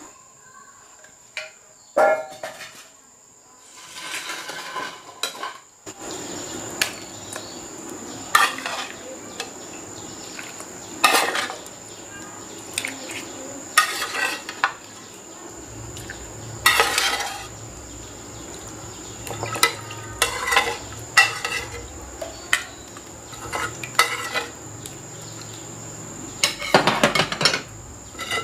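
Metal ladle clinking and scraping against a frying pan and a steel bowl as meat is scooped out of broth, in irregular clinks.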